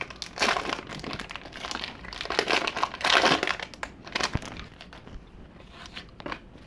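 Wrapper of a 1991 Leaf Studio baseball-card wax pack crinkling as it is torn open and the cards slid out, in irregular bursts that are loudest about three seconds in and die down after about four and a half seconds.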